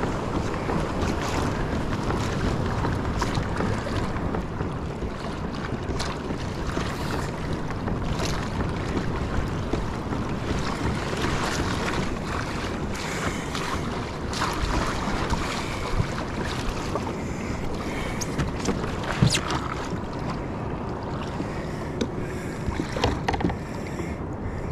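Wind buffeting the microphone over choppy seawater sloshing and splashing around a kayak, with a few sharp knocks from gear on the deck.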